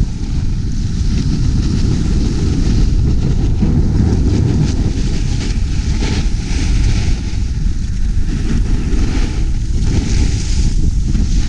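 Wind buffeting a GoPro Hero Session's microphone while skiing downhill, a steady low rumble. Over it, the hiss and scrape of skis on packed snow rises and falls with the turns.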